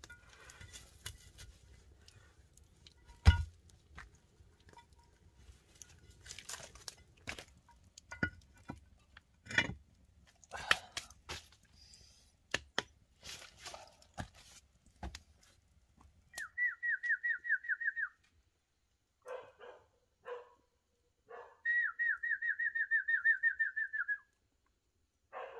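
Scattered knocks and scrapes of bark and stone being handled on the ground, with one sharp thump about three seconds in. After a sudden drop in background noise, a loud rapid trilled whistle comes in two runs, about eight pulses a second, the second run longer.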